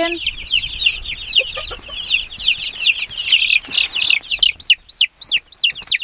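A flock of Cornish cross broiler chicks peeping in a dense, continuous high chorus. After about four seconds a few loud single peeps stand out, each a quick up-and-down chirp, two or three a second.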